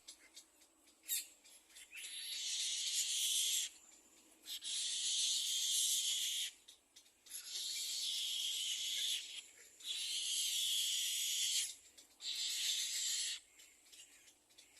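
Little egret chicks begging for food in the nest: harsh, hissing rasps, each a second or two long, repeated about five times with short breaks between.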